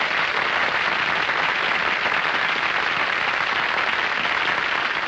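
Audience applauding steadily at the close of a tap dance number.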